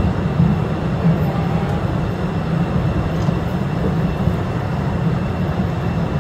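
Open-carriage electric tourist cave train running along its track: a steady low rumble of wheels and carriages.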